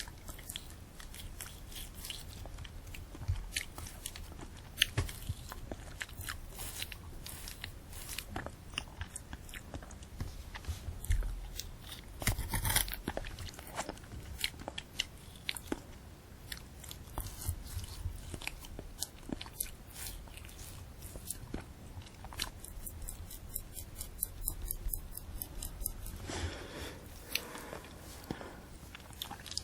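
Close-miked eating of a candy apple: the hard sugar shell cracking and the crisp apple flesh crunching between the teeth, with wet chewing and many small crackles. There is a louder crunch about halfway through and another near the end.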